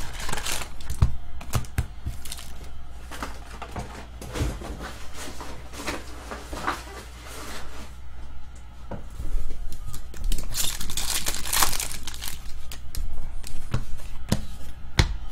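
Foil trading-card packs of Upper Deck SP Authentic hockey rustling and crinkling as they are pulled from a cardboard hobby box and torn open, with light clicks and taps of packs and cards being handled. A louder stretch of crinkling and tearing comes about two-thirds of the way in.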